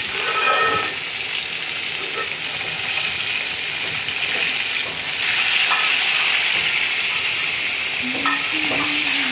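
Surmai (king mackerel) pieces shallow-frying in hot mustard oil in a kadai, sizzling steadily, louder from about five seconds in, while a metal spatula stirs and turns the pieces in the pan.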